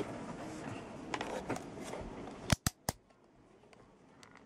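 Hands handling a PDA and a DT-181 digital multimeter: rustling, then three sharp clicks in quick succession about two and a half seconds in, and one more click near the end.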